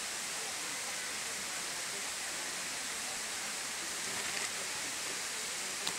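Steady, even hiss of outdoor background noise, with a couple of faint clicks, one about four and a half seconds in and one near the end.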